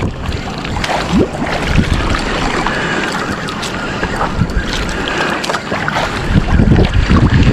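Wind buffeting the microphone over choppy sea, with water lapping around a small outrigger boat; the rumble swells near the end.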